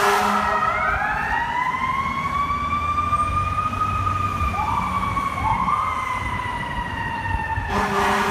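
Fire apparatus siren winding up slowly over about three seconds, then slowly falling, with two quick rising whoops from a second siren about halfway through, over the low rumble of a truck engine. A steady blast of the fire truck's air horn cuts in near the end.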